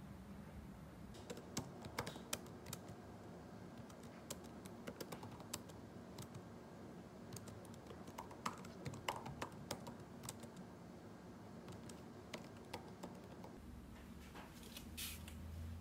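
Laptop keyboard being typed on: irregular soft keystroke clicks in uneven runs, starting about a second in and stopping shortly before the end.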